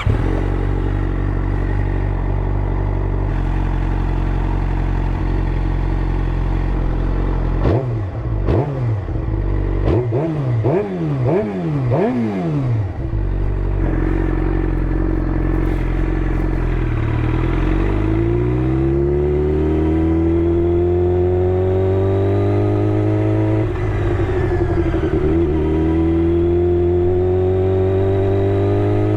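Suzuki GSX-R600 inline-four through an M4 GP slip-on exhaust, idling, then blipped up and down in several quick revs about eight seconds in. After settling back to idle, the revs climb slowly and steadily for the last dozen seconds, with a brief wobble in the middle of the climb.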